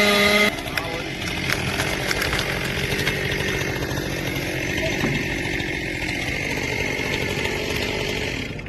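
Chainsaw running at full throttle, which stops abruptly about half a second in. A steady rough noise with scattered sharp cracks and clicks follows.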